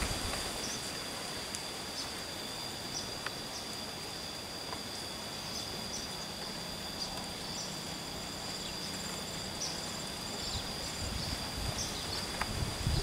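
Steady high-pitched insect drone holding through the whole stretch, with short higher chirps recurring every second or so over it.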